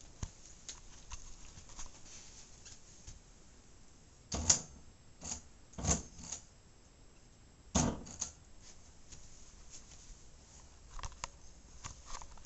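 Light scattered clicks and rustling, with about six louder sharp knocks, roughly in pairs, from about four and a half to eight seconds in.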